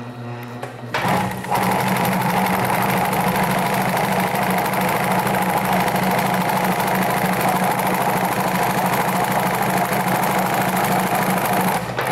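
Industrial sewing machine stitching through foam-backed upholstery material at a steady fast speed. It starts about a second in and stops near the end.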